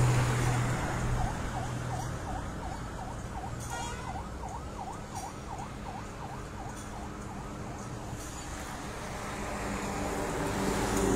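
Faint emergency vehicle siren in yelp mode: quick up-and-down wails, about two or three a second, dying away near the end. Steady road traffic noise runs underneath.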